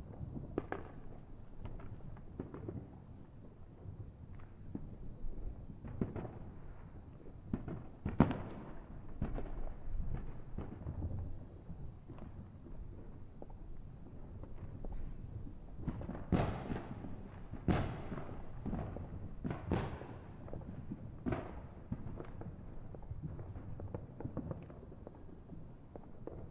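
Fireworks and firecrackers going off: scattered irregular pops and bangs, with a run of louder bangs a second or two apart past the middle.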